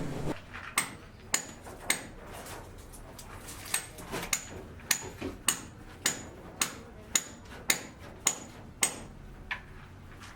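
Hammer blows at a steady pace of about two a second, each with a short high ring. There is one pause of about a second and a half early on, and about fifteen strikes in all.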